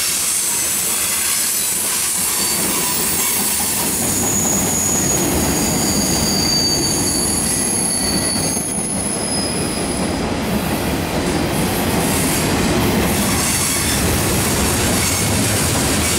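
Freight train tank cars and boxcars rolling past close by: steel wheels running on the rails with a steady rumble and rail-joint clatter. Thin, high wheel squeals ring out from about four seconds in until about ten seconds in.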